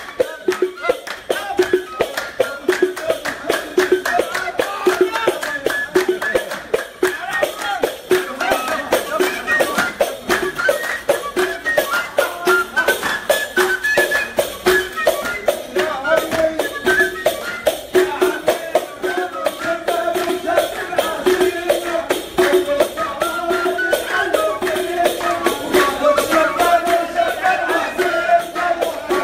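Live Levantine folk music: end-blown flutes playing a melody over a fast, steady beat of handclaps and percussion.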